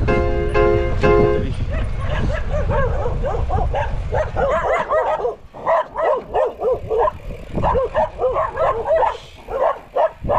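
Music for about the first second and a half, then a dog yelping and barking in quick, short calls several times a second.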